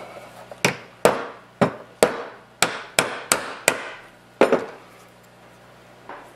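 A hammer tapping about ten times in quick, uneven succession, driving a ball bearing into a 3D-printed plastic extruder idler block. The taps stop near the end.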